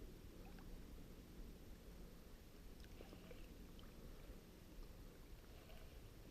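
Near silence: a faint low rumble of wind and water around a small paddled boat, with a few light clicks.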